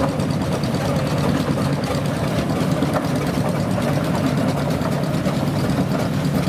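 Steam traction engine and showman's engine running steadily as they drive slowly past.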